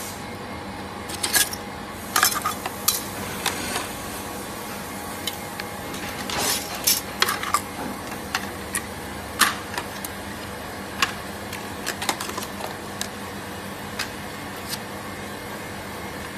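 Irregular clicks, taps and scrapes of metal and plastic prying tools working against a phone screen's glass and panel layers, over a steady machine hum.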